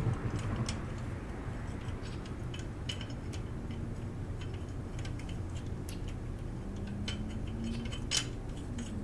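Light, irregular metallic clicks and ticks as a bolt is worked by hand through the metal mounting bracket of a motorcycle sump guard, with one sharper click near the end.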